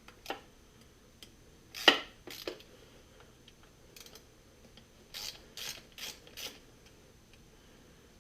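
Metal hand-tool clicks and a sharp knock during engine disassembly, followed by four short rasping, ratchet-like strokes about a third of a second apart.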